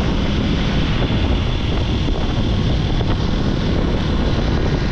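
Wind rushing over the helmet microphone of a moving motorcycle, with the engine running steadily beneath it.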